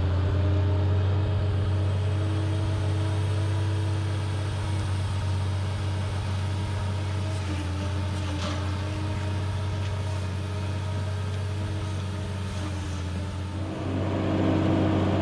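Travelift's engine running steadily with an even, unchanging drone, growing a little louder near the end.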